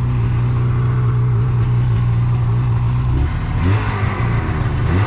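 Polaris mountain snowmobile's engine idling steadily, then revved up and down from about three seconds in as the rider tries to get the stuck sled moving again.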